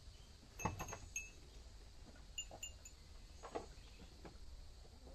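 Wind chime tinkling: scattered clusters of short, light high notes, a little under a second in and again around two and a half seconds. A few soft knocks and clicks come in between.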